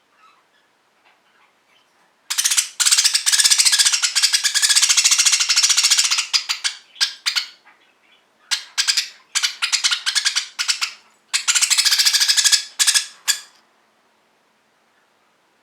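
Pet budgerigar giving a harsh, rasping, vicious-sounding call of rapid pulses in three long bouts. The calls stop about two seconds before the end.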